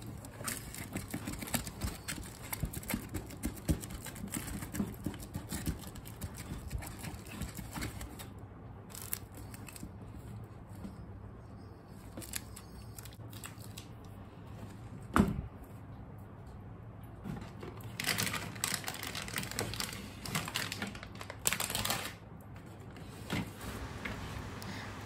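Crumpled sticky tape dabbed against a leather bag's suede lining, a busy run of small sticky taps, peels and crackles. One sharp knock comes about fifteen seconds in, and louder rustling between about eighteen and twenty-two seconds.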